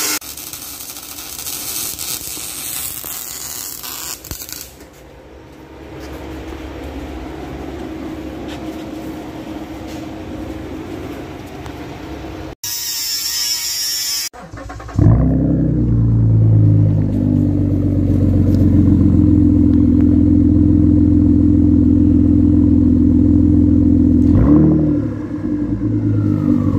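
A grinder cutting through exhaust metal, with a second short cut around 13 seconds. About 15 seconds in, the 3.5 L twin-turbo EcoBoost V6 of a Lincoln MKT comes in running loud and deep through its exhaust with the mufflers cut off, dipping briefly near the end.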